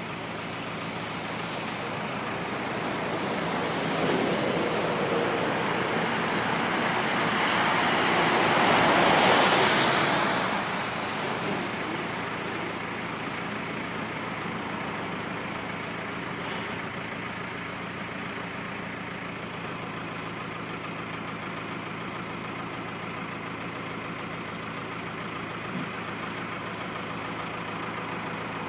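Iveco four-cylinder diesel engine of a Dieci L3500 self-loading concrete mixer running steadily, with a louder, rushing stretch from about four to eleven seconds in.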